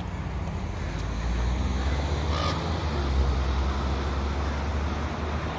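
Low engine rumble of a city bus passing close by, swelling through the middle, with a crow cawing about two and a half seconds in.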